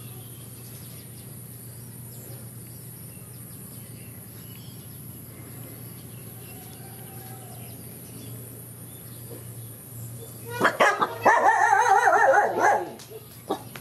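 Dog barking in a loud burst lasting about two seconds near the end, after a stretch of quiet, steady background.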